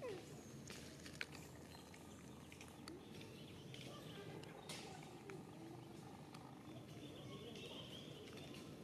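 Quiet outdoor background, with one short falling call at the very start, a few faint clicks, and faint high chirps near the end.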